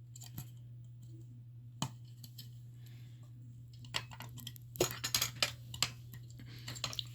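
Scattered sharp plastic-and-metal clicks and rattles from a stiff FCI MS6 fire alarm pull station being handled and its hard-to-pull handle worked one-handed, with a quick cluster of clicks about five seconds in, over a low steady hum.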